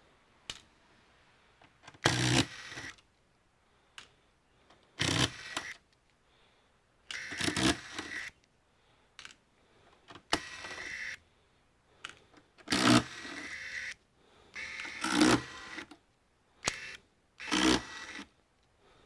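Small electric screwdriver running in short bursts, about eight times, backing screws out of a computer's casing.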